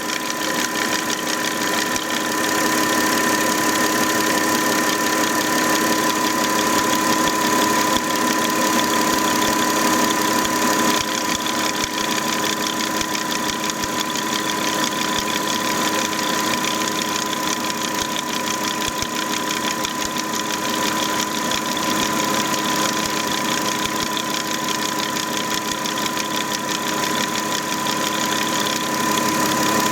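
Volkswagen Touareg engine idling steadily, with a constant high-pitched whine over the idle.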